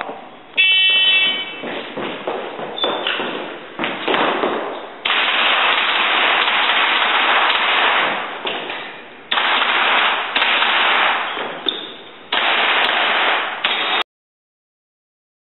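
Airsoft gun firing in long rapid bursts that start suddenly and stop several times.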